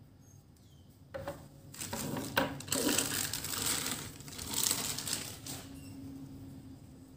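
A clear plastic packaging bag crinkling and crackling as it is handled and pulled off a packaged figure part. It starts about a second in with a few sharp crackles, grows denser, and dies away near the end.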